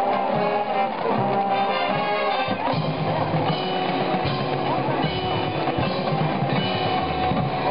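Marching band playing: brass, including sousaphones, over drums and percussion, loud and continuous.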